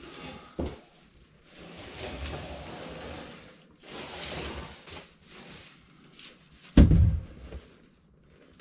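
Broom sweeping wood shavings across a wooden plank floor onto a metal dustpan, in several swishing strokes. A single loud thump comes about 7 seconds in.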